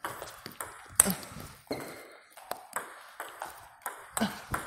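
Table tennis rally: sharp clicks of the ball striking rubber-faced bats and bouncing on the table, a few every second at an uneven pace, the hardest hits about a second in and near the end. Each click rings briefly in a large hall.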